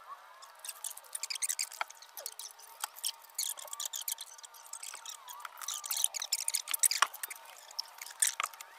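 Scattered clicks, scrapes and knocks of a long wooden beam being handled and set down on an old brick foundation wall, with footsteps on loose brick rubble.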